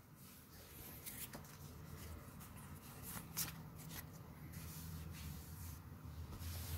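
Faint crinkling and rustling of a foil Pokémon trading-card booster pack being torn open and handled, with a few sharper crackles about a second in and again past three seconds.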